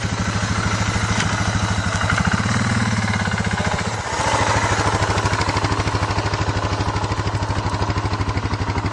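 Motorcycle engine idling with a steady, even beat. The note rises slightly for a couple of seconds about two seconds in, then settles back.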